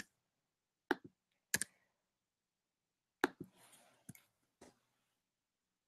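A handful of faint, single clicks from a computer keyboard and mouse, spaced out with pauses, as short numbers are entered into form fields.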